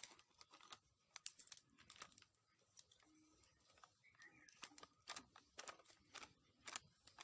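Faint, irregular crackling and crinkling from a wood fire burning in a clay chula and a plastic packet of gram flour being tipped into a steel bowl.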